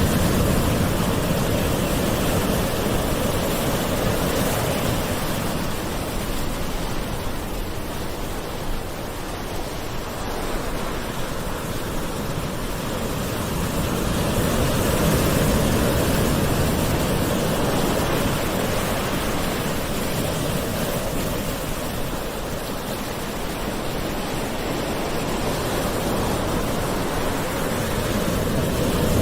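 Gentle sea waves washing ashore, a continuous rush of surf that slowly swells and ebbs, cresting about every fourteen seconds.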